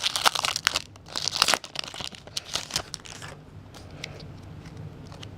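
Pokémon TCG booster pack's foil wrapper crinkling and tearing open in dense crackling bursts, which stop a little over three seconds in.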